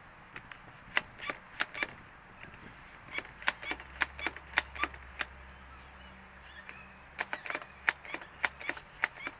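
Sharp plastic clacks from an Adventure Force pump-action water gun being pumped and fired. They come in three bursts of several clacks each, a few a second.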